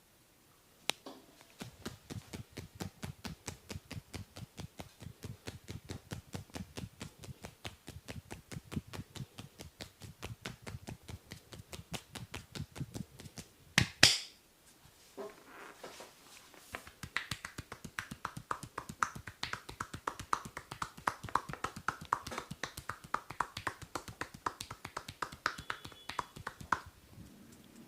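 Rapid rhythmic percussive massage strikes on the body: dull thuds at about five a second, a single loud sharp crack about halfway, then quicker, sharper slapping strokes until just before the end.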